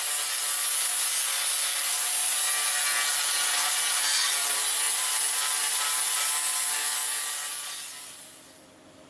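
Porter-Cable angle grinder with a 60-grit flap disc grinding rusted steel roof panel, stripping the rust back to bare metal. Its hiss and motor whine run steady, then fade out near the end.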